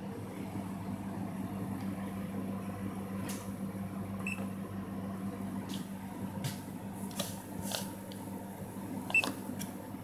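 Crane National Vendors snack vending machine running with a steady low hum, with faint clicks and two short electronic beeps, one about four seconds in and a louder one near the end.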